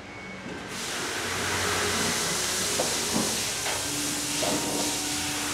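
A steady hiss sets in about a second in and holds level, with a faint steady hum under it.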